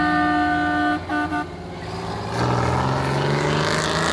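Truck air horn on a passing cabover semi tractor: a held blast that ends about a second in, then two quick short toots. Its diesel engine then revs up loudly, rising in pitch as it pulls by.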